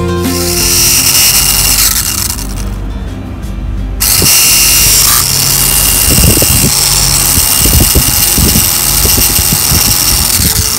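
Small DC motor running at high speed through a set of plastic gears, a steady high whine and whir. It drops away for about two seconds, then comes back loud, with light rattling knocks from the gears and handling in the middle.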